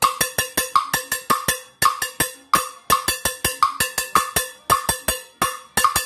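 Cowbell struck with a stick, playing the timbale bell pattern (campaneo de timbal) in 3-2 clave: a fast, steadily repeating rhythm of sharp ringing metallic strikes.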